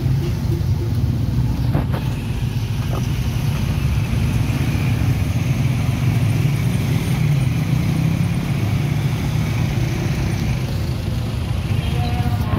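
Motorcycle engine of a motorized becak (motorcycle with a sidecar cab) running steadily under way, heard from inside the cab, with road noise.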